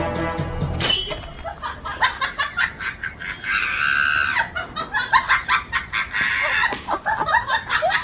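Hens clucking and squawking in quick, irregular calls, with one longer squawk about halfway through. Background music stops about a second in.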